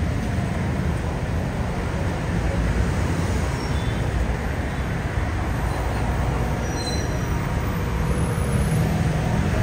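Steady city road traffic, mostly the low engine noise of passing vehicles.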